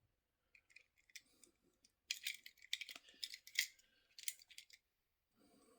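Faint small clicks and light scrapes of toy model vehicles being handled and moved about on a surface, in a few short clusters mostly between about two and four and a half seconds in.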